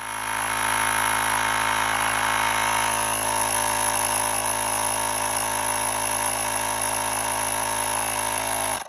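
GHHKUD portable tire inflator's small air compressor running steadily as it pumps up a car tire set to 35 PSI: a constant buzz with a thin high-pitched whine above it, stopping abruptly near the end.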